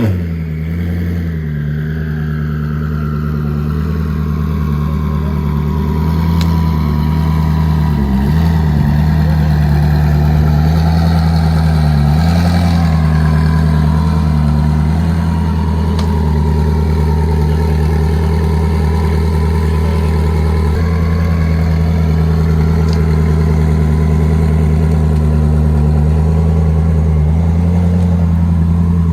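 Koenigsegg twin-turbo V8 idling steadily, its pitch dipping and recovering briefly twice.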